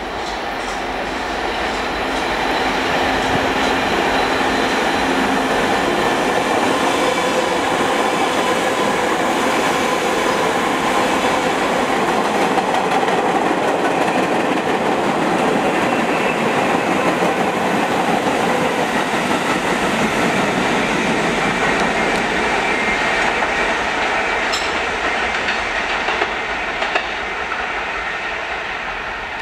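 R68 New York City subway train running through the station on the express track. Its noise builds over the first few seconds, holds steady as the cars go by, and fades near the end as the train pulls away, with a few sharp clicks as it goes.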